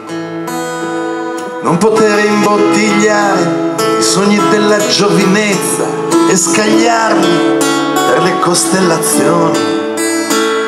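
Live acoustic band playing an instrumental passage: a strummed acoustic guitar over long held notes, with a melody line moving above.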